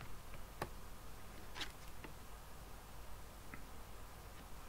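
A few faint clicks and light taps of glossy cardstock oracle cards being handled and picked up, over a low steady room hum.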